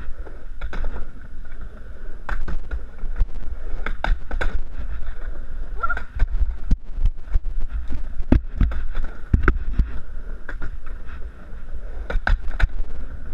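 Skateboard riding back and forth on a mini ramp: a steady rolling rumble from the wheels, broken by many sharp clacks and knocks of the board and wheels hitting the ramp and coping.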